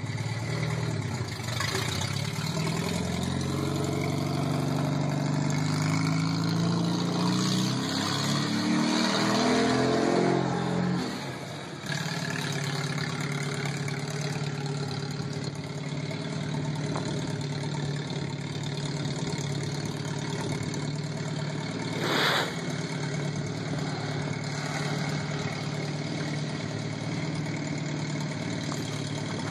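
1986 VW Jetta's four-cylinder petrol engine with an open downpipe, loud, its revs climbing steadily for about ten seconds as the car pulls away and accelerates, then dropping sharply. A steady engine drone follows to the end.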